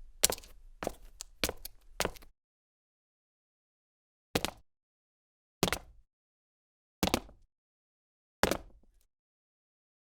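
A woman's footsteps: a quick run of steps that stops about two seconds in, then after a short gap slow single steps, about one and a half seconds apart.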